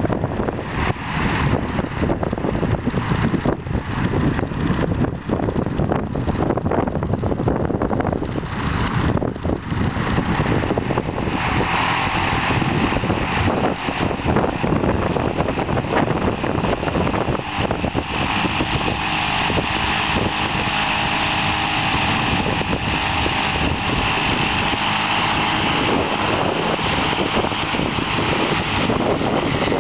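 Small petrol motor on a homemade kontiki fishing raft running loudly, with wind on the microphone; about eleven seconds in it steps up to a steady high-pitched whine and holds there.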